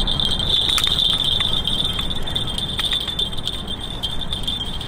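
Spinning fishing reel giving a steady high-pitched buzz while a hooked striped bass is played on the line, with a few light clicks. Wind rumbles on the microphone underneath.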